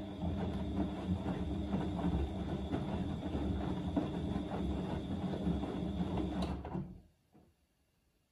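Siemens Extraklasse XL110A front-loading washing machine tumbling its drum in the Easy-Care 40° main wash: the motor hums with a steady high whine while the wet laundry sloshes and drops in the water. The tumble stops about seven seconds in and the machine goes quiet as the drum rests.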